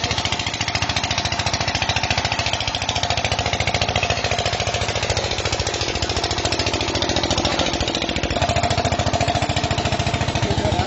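An engine running steadily with a rapid, even pulse throughout.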